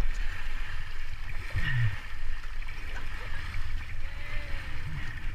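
River water rushing steadily around a raft, over a constant low rumble.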